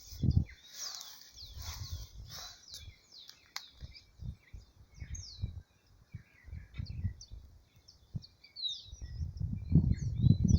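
Songbirds chirping, many short, quick down-slurred high notes repeating throughout. Under them is an uneven low rumbling noise that is loudest near the end.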